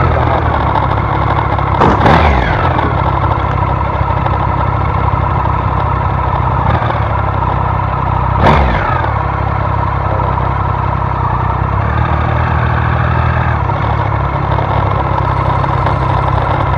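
Vehicle engine and road noise running steadily, with two brief louder sweeps falling in pitch, about two seconds in and again near the middle.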